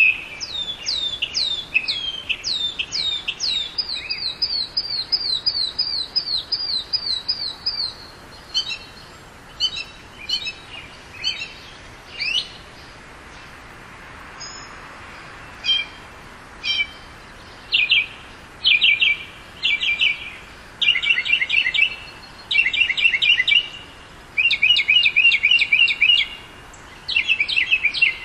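Northern mockingbird singing, phrases each repeated several times before switching to a new one. First come quick downward-sweeping notes, then a steadier repeated note. Scattered single notes follow about once a second, and from the second half on there are bursts of rapid trilled phrases.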